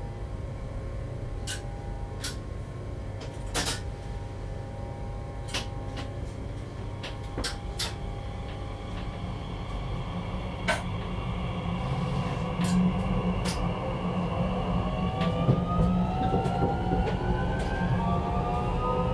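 Z50000 (Bombardier Francilien) electric multiple unit heard from inside the cab running at speed: a steady low rumble with scattered sharp clicks and knocks. From about two thirds of the way in, a whine rises slowly in pitch over it.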